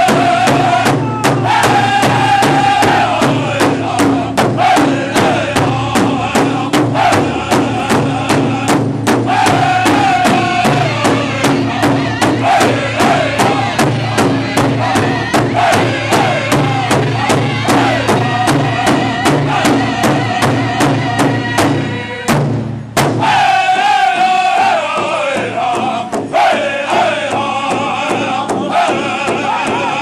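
Northern-style powwow drum group: a chorus of men singing high, wavering chant lines while beating together on a large shared drum in a steady beat. The drumming and singing break off briefly about two-thirds of the way through, then a high lead voice starts the song up again.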